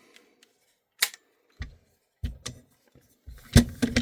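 Airsoft rifle parts being handled: a few separate sharp clicks spaced out, then a quicker cluster of louder clacks near the end.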